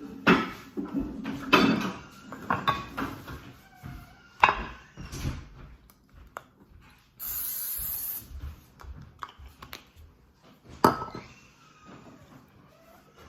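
Kitchen clatter of a metal baking pan, dishes and utensils being handled and set down, a run of sharp knocks loudest near the start and about four and a half seconds in. A short steady hiss lasting under a second comes about seven seconds in.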